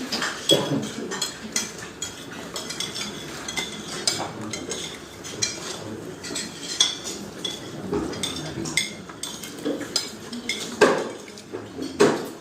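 Cutlery clinking and scraping against plates and bowls during a shared family meal, with irregular sharp clinks and clatters and a low murmur of voices underneath.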